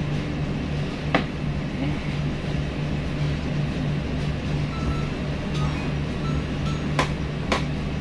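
Steady low mechanical hum from a front-loading washing machine running a test cycle, with a sharp click about a second in and two more close together near the end.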